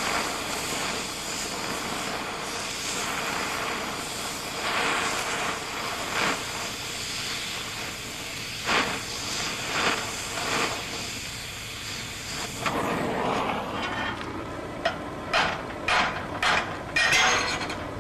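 Oxy-acetylene cutting torch hissing steadily as its cutting jet washes a rusted bolt head off a steel plate. About two-thirds through, the hiss drops away, leaving a run of short, sharp pops and crackles.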